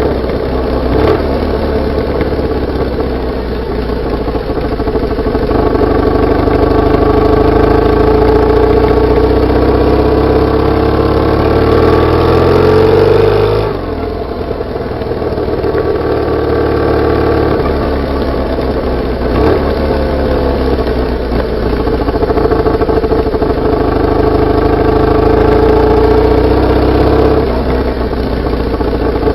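BMW R850R flat-twin boxer engine running while riding, picked up from just above the exhaust. The note is steady, climbs in pitch as the bike accelerates, falls away sharply about fourteen seconds in, then settles into a steady run again.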